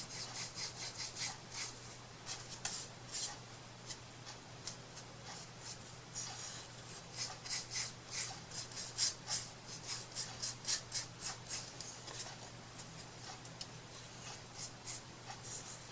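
Short rubbing strokes of a hand-worked craft tool on a surface, coming in quick runs of several a second, over a faint steady hum.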